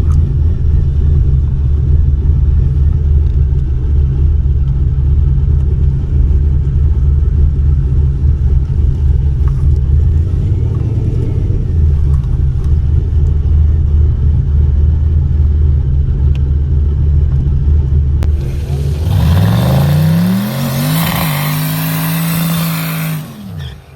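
Turbocharged LS V8 drag car engine idling with a steady low rumble. About nineteen seconds in it revs up with rising pitch, holds high for a couple of seconds, then falls away near the end.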